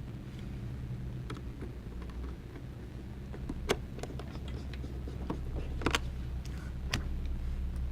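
Small sharp clicks and taps of tools and parts on an iPhone 6 being reassembled, with the bracket going back on; one louder click about halfway through and two more near the end. A steady low hum runs underneath.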